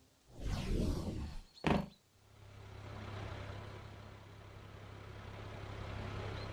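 Cartoon sound effects: a whoosh lasting about a second as the glass windshield piece flies off, then a short sharp clunk. From about two seconds in comes a steady low engine rumble from the cartoon dump truck.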